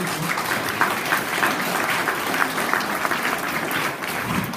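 Audience applauding: many people clapping, starting abruptly and tapering off near the end.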